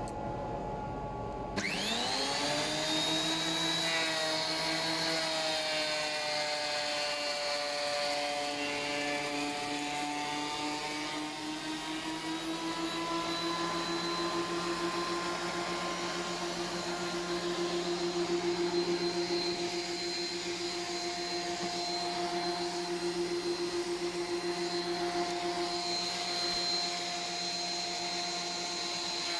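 DeWalt thickness planer motor starting about a second and a half in, its whine rising quickly to full speed, then running steady while Sapele boards feed through the cutter head, the pitch sagging slightly and recovering partway through.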